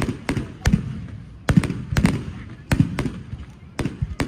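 Fireworks display: about a dozen aerial shells bursting at irregular intervals, some close together. Each burst is a sharp bang with a low boom.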